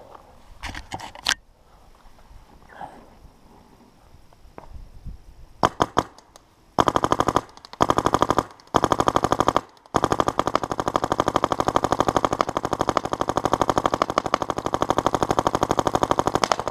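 Dye DM13 electropneumatic paintball marker firing: a few single shots at first, then short rapid strings and a long unbroken string of fast, evenly spaced shots in the second half, in PSP ramping mode capped at 12.5 shots a second.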